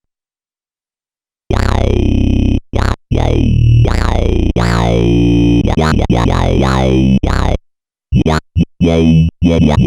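Korg monologue monophonic analog synthesizer playing a factory preset: low bass notes with a resonant filter sweeping on each note, starting about a second and a half in after a silence. Near the end come several short, clipped notes.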